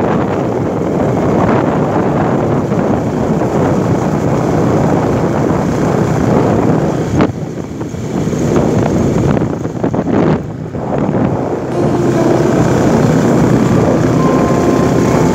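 Wind rushing over the microphone of a phone carried on a moving motorcycle, with the engine and road noise under it. The wind drops briefly twice around the middle.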